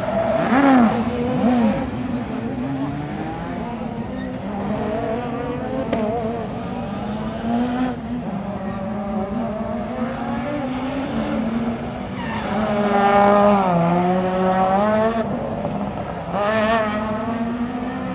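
Rally car engine revving hard and changing pitch as the car accelerates, brakes and turns round the stage. It is loudest about thirteen seconds in, where the note drops and then climbs again as the car passes nearest.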